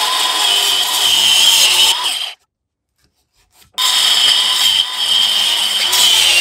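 DeWalt 20V MAX cordless angle grinder with a thin disc cutting into a plastic header-panel tab, a steady whine over grinding noise. It stops about two and a half seconds in and starts cutting again about a second later.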